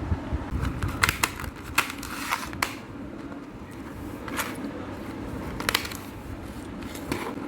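Irregular clicks and rustles of objects being handled, about eight in all, over a steady low background hum.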